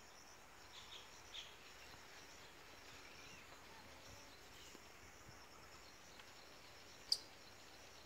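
Faint outdoor ambience with a thin, steady high insect drone. A few faint short chirps come about a second in, and one sharp click-like note comes near the end.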